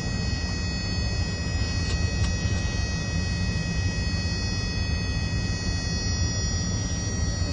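Steady low rumble of a moving bus heard from inside its cabin: engine and road noise, with a thin steady high whine above it.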